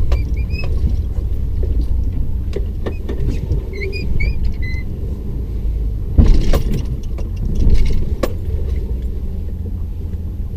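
Truck cabin: steady low rumble of the engine and road while driving slowly, with a few short high squeaks and sharp knocks about six and eight seconds in.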